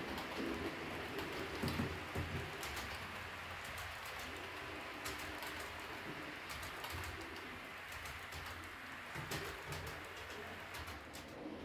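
H0-scale model passenger coaches rolling over the layout track, with many light clicks from the wheels on the rails. A low, pigeon-like cooing comes and goes throughout.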